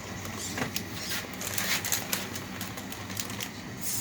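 Danchee Ridgerock RC rock crawler driving, with irregular small clicks and crackles as it crawls over the ground, over a faint steady hum.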